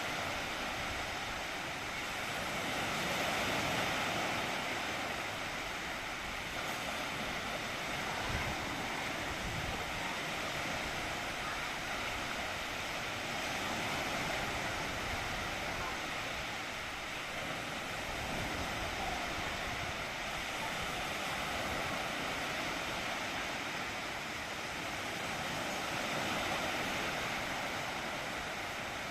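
Surf washing on a sandy beach: a steady wash of small waves that swells gently and eases about every ten seconds.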